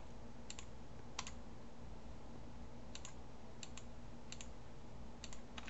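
Scattered sharp clicks of computer input buttons pressed while selecting faces in Blender: about nine, some in quick pairs, over a low steady hum.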